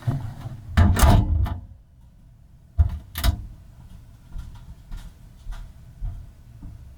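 Handling noise: a scraping rush lasting under a second, then two sharp knocks about half a second apart, followed by lighter taps and knocks.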